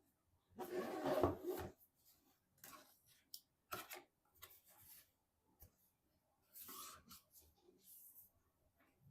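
Intermittent rustling and scraping from hands handling computer parts or their packaging, the loudest a one-second rustle about half a second in, with shorter scrapes and clicks later on.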